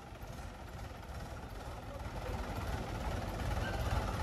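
Tractor diesel engine running, a low rumble that slowly grows louder.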